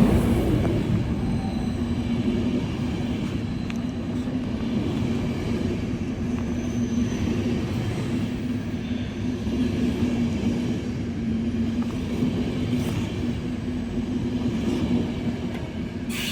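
Train running with a steady low rumble and a constant hum.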